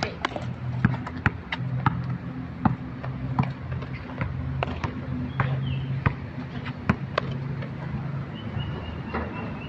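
A basketball bouncing on a concrete court: sharp knocks at irregular intervals, about every half second to a second, over a steady low hum.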